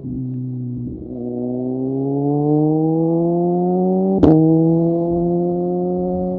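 Motorcycle engine revving up slowly and steadily under acceleration, with a brief dip in the note about a second in before the pitch climbs again. A single sharp click about four seconds in.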